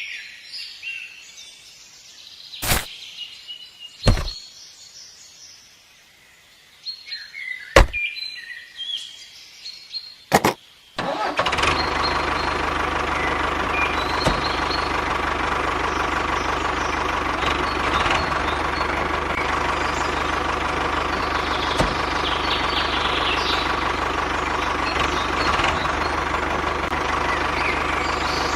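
Birds chirping, with a few sharp knocks. About eleven seconds in, a small engine starts abruptly and runs steadily at idle.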